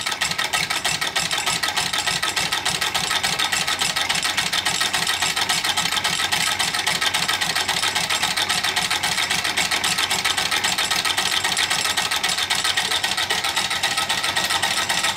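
Home-built single-cylinder engine with new rotary valves running on compressed air at about 200 RPM: a fast, even ticking of the valve gear and crank over a steady hiss of air.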